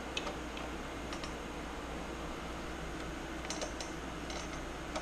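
Scattered light clicks and taps from pliers and ignition leads being handled against a sheet-metal bracket on the engine, a few near the start and small clusters in the second half, over a steady low hum.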